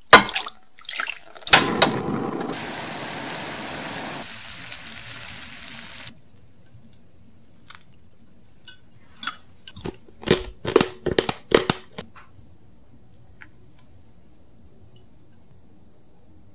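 A few sharp knocks, then water poured from a glass measuring jug onto sugar in a stainless steel saucepan, splashing and trickling for a few seconds. After a pause, a quick run of sharp clicks and taps comes from a glass jug of water that a hand is working in.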